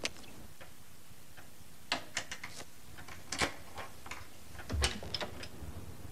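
Scattered light clicks and taps on a cartoon soundtrack, irregular and with no steady rhythm, with a heavier dull thump just before five seconds.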